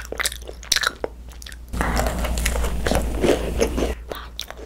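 Close-miked eating of a thick-filled macaron (ttungcaron). Sharp crunches of the shell come first. From about two seconds in there is a louder, denser stretch of chewing that eases off near the end.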